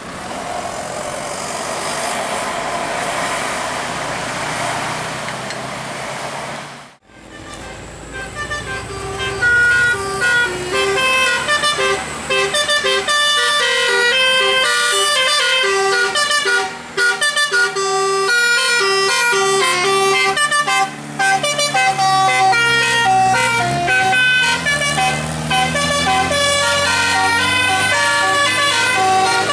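A vehicle passes with engine and road noise for about seven seconds. Then, after a brief cut, a basuri musical horn plays a tune of quick-changing notes, with a swooping dip and rise in pitch about three-quarters of the way through.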